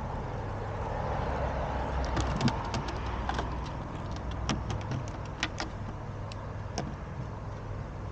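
Scattered sharp clicks and taps, mostly through the middle, as a cat paws at a string toy against a wooden deck railing. A steady low rumble lies under them.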